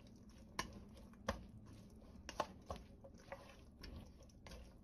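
Chopsticks tossing sauce-dressed shredded tofu skin in a stainless steel bowl: faint wet squishing with scattered light clicks.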